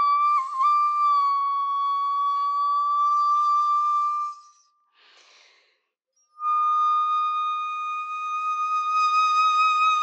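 Shakuhachi (bamboo end-blown flute) playing long held notes. The first note has quick finger-flicked dips in pitch early on, holds steady and fades at about four seconds. After a short breath, a second long note sets in at about six seconds and is held.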